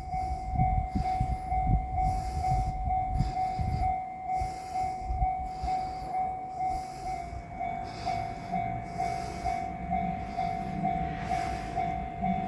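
Japanese railway level-crossing alarm ringing its repeating electronic "kan-kan" bell tone in an even, steady rhythm. Past the middle, a diesel railcar's engine is heard approaching and grows louder toward the end.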